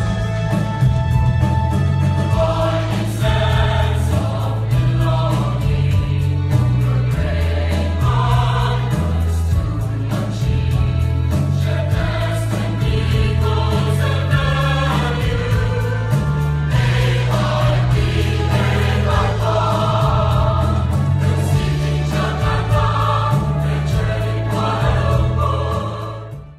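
A choir singing over an accompaniment with heavy low notes that move in steps, fading out at the very end.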